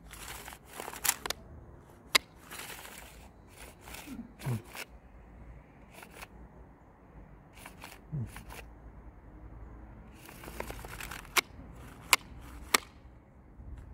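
Plastic recoil starter cover of a chainsaw being handled while a new starter rope is fitted: rustling and scattered sharp plastic clicks, a few louder clicks near the end.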